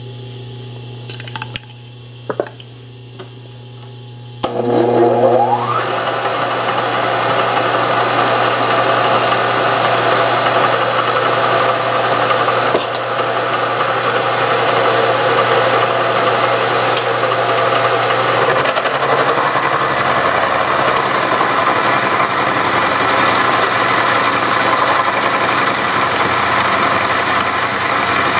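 A Bridgeport milling machine's spindle runs with a steady hum and a few light clicks. About four seconds in, a rising whine marks the cutter biting into the metal block, and it then keeps up a steady cutting noise while roughing out a slot.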